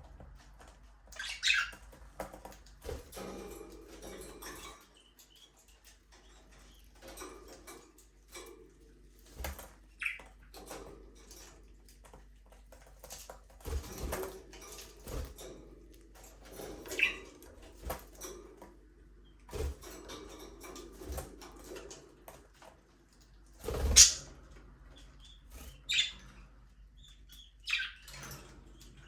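Budgerigars giving short, scattered chirps and calls every few seconds, mixed with rustling and small knocks from the birds moving about the cage. The loudest is a chirp with a knock about two-thirds of the way through.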